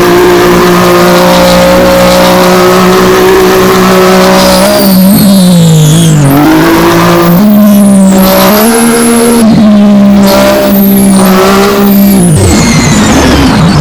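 Loud engine-like drone, typical of racing-car audio, holding a steady pitch at first. From about five seconds in, its pitch dips and climbs again several times, with short falling high whines over it.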